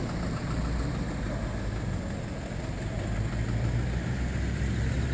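Road traffic: engines of a small truck, a van and cars idling and moving off at a junction, a steady low rumble that grows a little louder in the second half.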